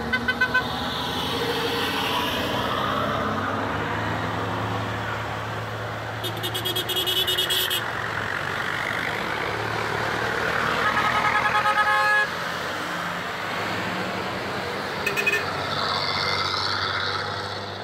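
Vehicle engines running steadily, with several bursts of rapid, pulsing horn honking.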